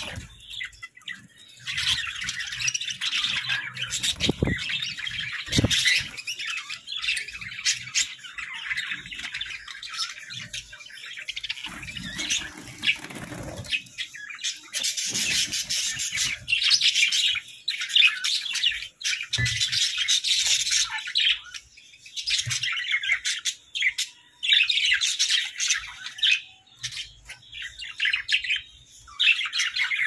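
A flock of budgerigars chattering and warbling, a busy, high-pitched twittering in bouts of a few seconds with short pauses between them.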